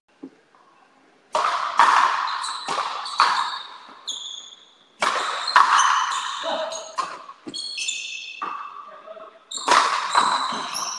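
Frontenis rally: the rubber ball smacking off rackets and the frontón wall and bouncing on the court. The sharp, echoing hits come in three quick flurries, the first about a second in, the second about halfway through and the third near the end.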